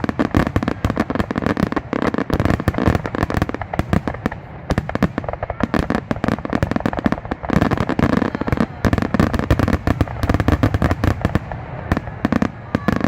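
Fireworks bursting in rapid, unbroken succession: several sharp bangs a second, overlapping one another.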